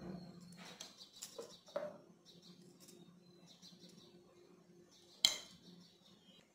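A metal spoon scraping and tapping in a stainless steel bowl as ginger garlic paste is dropped onto fish pieces, with one sharp clink about five seconds in. Birds chirp faintly in the background over a low steady hum.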